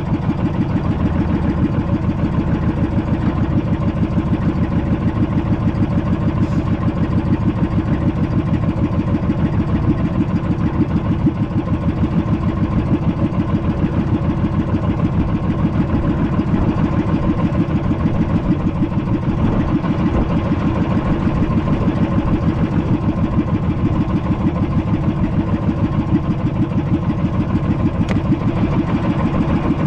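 Small fishing boat's engine running steadily, a fast even beat of firing strokes with no change in speed.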